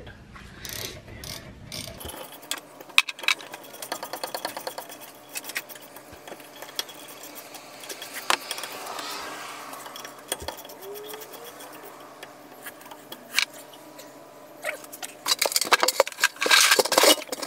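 Hand ratchet clicking in short runs as the rear brake caliper bolts are turned by hand, with metal tools clinking. Near the end, a burst of louder knocks and scrapes as a plastic bucket is set down by the wheel.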